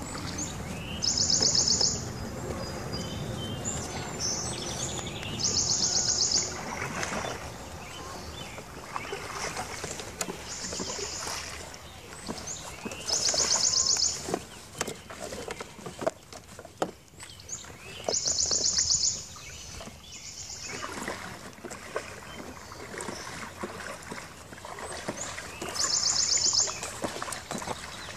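Hands fitting a kayak seat and pulling webbing straps through plastic buckles: rustling, scraping and small clicks against the corrugated plastic hull. Every few seconds a loud, high, rapid trill about a second long cuts in, seven times in all.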